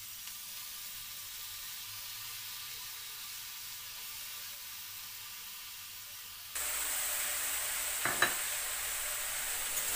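Diced vegetables frying in hot ghee in a kadai: a steady sizzle that steps up louder about two-thirds of the way through, with one light knock near the end.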